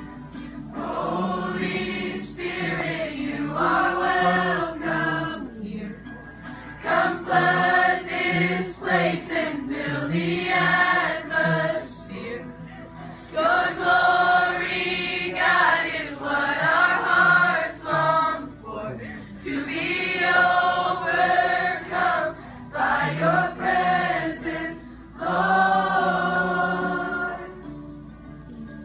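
A large crowd of students singing a song together like a choir, in phrases a few seconds long with short breaks between them.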